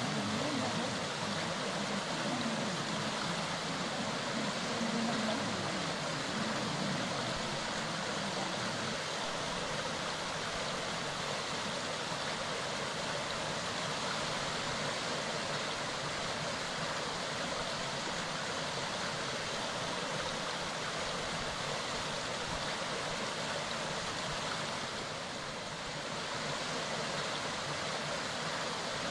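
Mountain stream running with a steady rush of water, easing off slightly for a moment near the end.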